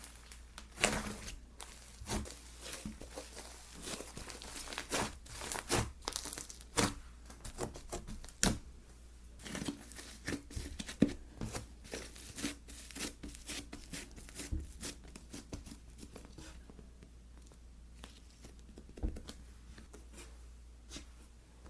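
Slime being squished, stretched and pressed by hand, giving off many irregular crackling pops and clicks. The pops are dense at first and thin out over the last few seconds.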